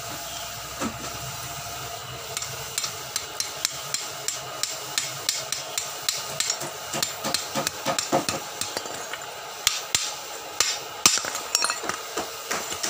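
Quick, irregular metal taps and knocks on a freshly welded steel pipe, several a second, coming faster past the middle, over a steady hum.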